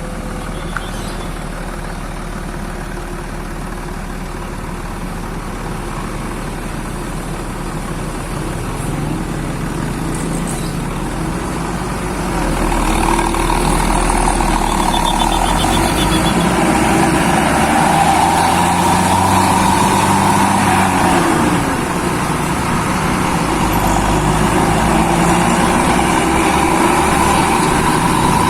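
A heavy road vehicle's engine running, with steady road noise; it grows louder about twelve seconds in and stays louder.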